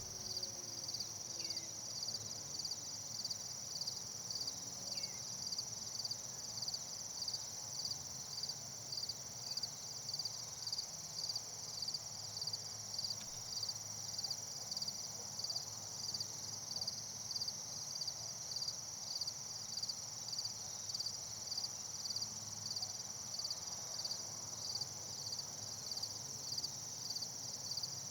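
Crickets chirping: a steady high-pitched trill with a regular pulsing chirp about twice a second on top.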